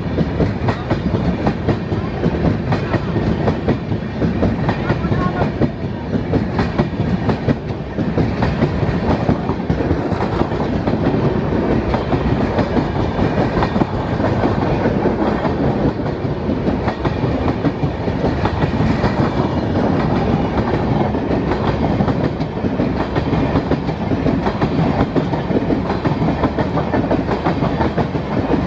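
Train running along the track, its wheels clattering steadily over the rails without a break.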